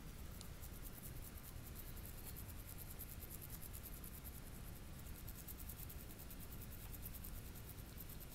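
Toothbrush bristles scrubbing a corgi's teeth in rapid back-and-forth strokes, a faint, steady scratchy brushing.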